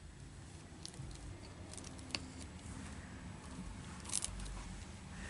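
Faint handling noise from latch hooking: yarn and canvas rustling, with a few small sharp clicks, about a second, two seconds and four seconds in.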